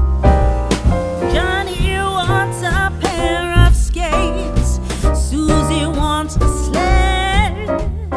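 Background music: an upbeat song with a sung melody over bass and drums.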